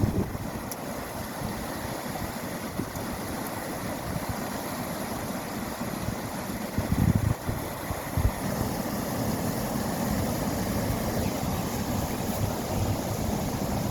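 Wind buffeting the microphone over a steady outdoor rush of noise, with a couple of stronger gusts about seven and eight seconds in.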